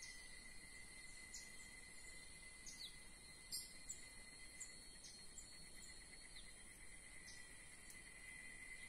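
Faint insect drone, a steady high tone, with short high descending chirps scattered through it. A couple of soft clicks come about three and a half seconds in.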